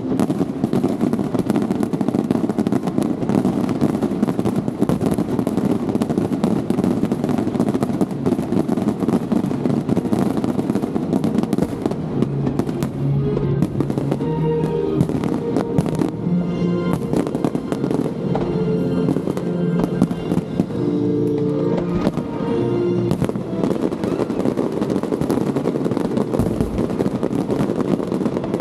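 Fireworks going off in a dense, continuous barrage of bangs and crackles, with music playing alongside.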